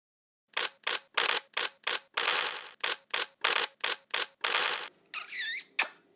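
Camera shutter sound effects: about a dozen quick snaps and longer clicks in an uneven rhythm. About five seconds in comes a wavering high warble, then one last sharp click.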